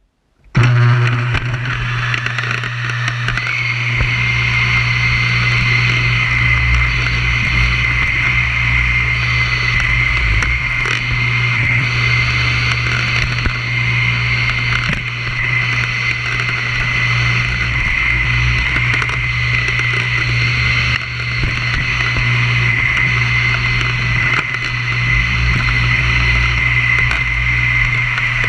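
Vacuum cleaner switched on and running steadily, with a low hum and a high motor whine that climbs to a steady pitch over the first few seconds.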